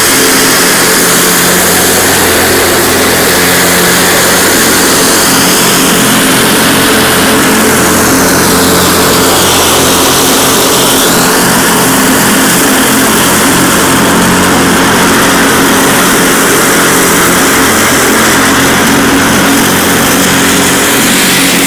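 Cub Cadet 1046 riding lawn tractor's engine running steadily with the mower deck engaged, mowing through dry leaves and throwing them up. A loud, even drone with a broad hiss on top.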